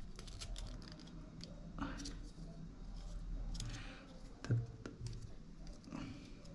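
Parts of a scale-model car seat being handled and fitted together by hand, a metal insert pushed into the seat. The result is scattered light clicks and taps, with one sharper knock about halfway through.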